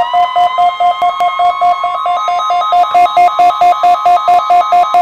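NOAA Weather Radio test alert: the receiver's alarm beeps about five times a second over the steady 1050 Hz warning alarm tone, which settles into pitch in the first second or two.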